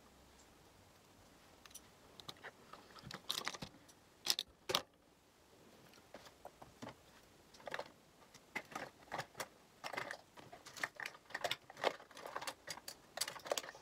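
Makeup products and cases being handled and rummaged through: irregular light clicks, taps and clatter, with two sharper clicks about four and a half seconds in and a busier run of clicking in the second half.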